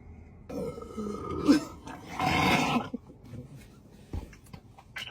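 A person burping after drinking Sprite: a croaky, wavering burp, then a louder, rougher burst about two seconds in.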